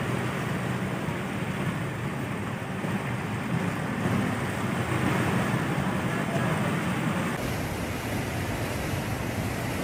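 A car driving through deep floodwater: water surging and splashing along its side over a low, steady engine hum. About seven seconds in this gives way abruptly to a flatter, steady rushing noise.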